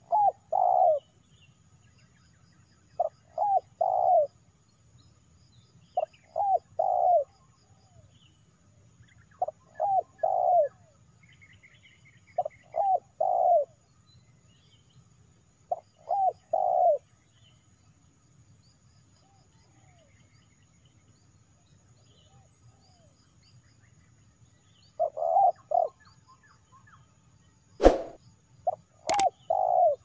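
Spotted dove cooing: a repeated phrase of two short notes and a longer one, about every three seconds, with a pause of several seconds in the middle. Two sharp clicks near the end.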